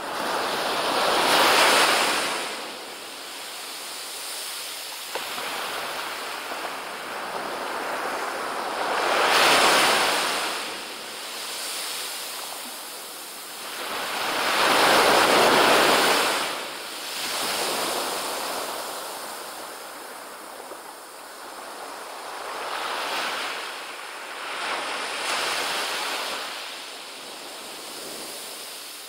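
Small waves breaking and washing up a sandy beach, the surf swelling and fading in slow surges: three big ones about two, nine and fifteen seconds in, with softer washes after them.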